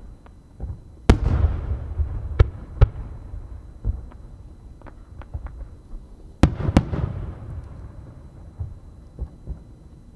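Aerial firework shells bursting: a heavy boom about a second in, two sharper reports a moment later, and a quick double boom about two-thirds of the way through, each trailing off in a low rolling echo, with scattered small pops and crackles between.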